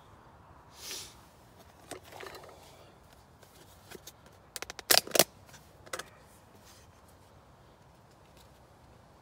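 Plastic food tubs being handled, with rustling. About five seconds in, a quick run of sharp plastic clicks and cracks, the loudest sound, as the lid comes off a tub of lettuce; one more click follows a second later.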